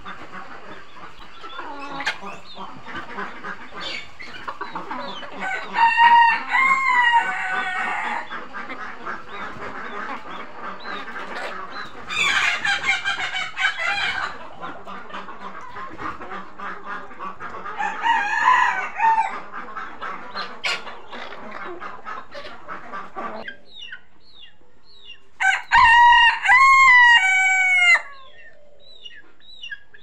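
Flock of hens clucking steadily, with a rooster crowing loudly several times, each crow falling in pitch at the end.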